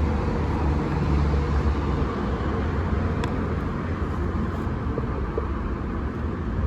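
Steady low background rumble with a hiss, and one faint click about three seconds in.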